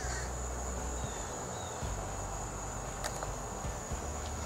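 Insects trilling in one steady, high-pitched note, with a low rumble underneath and a few faint clicks near the end.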